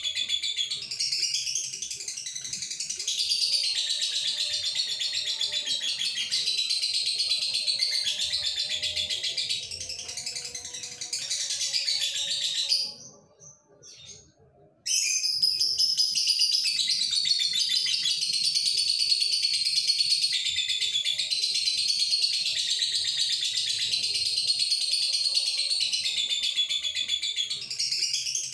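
Male lovebird in breeding condition singing a long, unbroken, high-pitched chattering song. It breaks off for about two seconds midway, then resumes just as dense.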